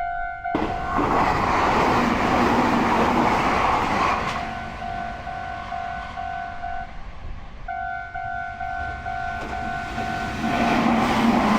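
Japanese level crossing bell ringing its repeated "kan-kan" ding, about two a second, while a train runs over the crossing. The train's wheel and rail noise comes in about half a second in and drowns the bell for a few seconds, the bell breaks off briefly past the middle, and train noise swells again near the end.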